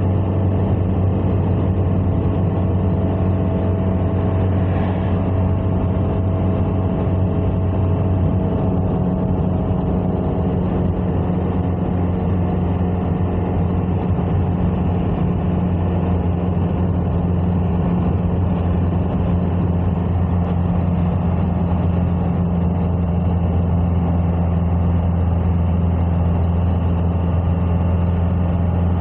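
Steady drone of a car on the move: engine and road noise holding an even low hum throughout.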